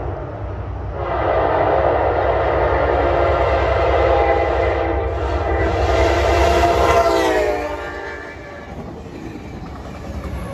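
Amtrak F59PHI diesel locomotive's horn sounding for a grade crossing as the train approaches at speed: a short break about a second in, then one long blast that sags in pitch and cuts off about eight seconds in. The locomotive's engine and the train's wheels rumble on as it passes close by.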